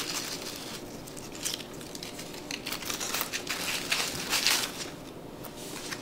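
Artificial flowers and plastic greenery rustling and crinkling as hands push and adjust stems in a centerpiece, in short, uneven rustles, the loudest about four and a half seconds in.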